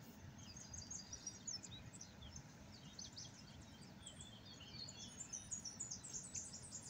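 Small birds chirping: many short, quick, high notes from more than one bird, getting busier in the second half, over a faint low rumble.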